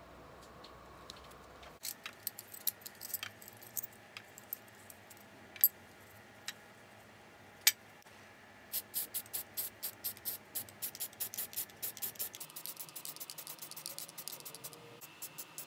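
Aerosol spray-paint can being shaken, its mixing ball rattling in a fast, even run of clicks, about four or five a second, from a little under halfway through. Before that, scattered light clicks and two sharp taps.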